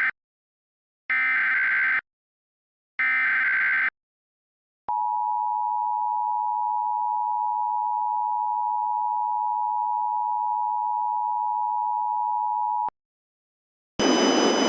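Emergency Alert System SAME header: two raspy digital data bursts about a second apart, after the tail of a first one. Then the EAS attention signal, a steady two-tone alarm of 853 and 960 Hz, holds for about eight seconds and cuts off sharply. Near the end the broadcast tornado-warning voice message begins.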